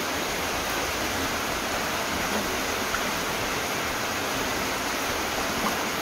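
Heavy rain pouring down in a steady, even hiss, with water splashing onto a flooded tiled floor.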